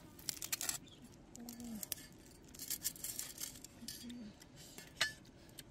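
Cleaver slicing through crisp pork crackling, the skin crunching and crackling in a few short bursts, with one sharp crack about five seconds in.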